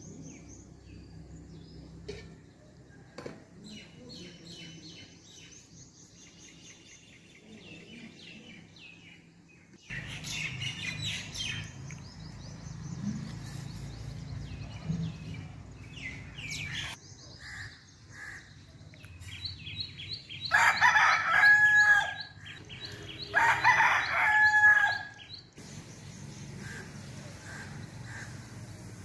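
Rooster crowing twice in quick succession, each crow about two seconds long and ending on a held high note. Small birds chirp faintly around it.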